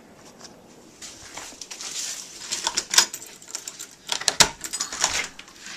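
A door being unlatched and pushed open, with a run of clicks and knocks and a rush of wind noise starting about a second in. The two loudest knocks come about three and four and a half seconds in.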